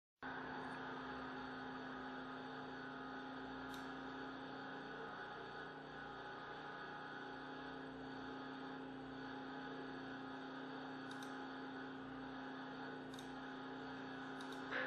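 Steady electrical hum with a low tone and a steady background hiss, with a few faint ticks and a brief louder noise at the very end.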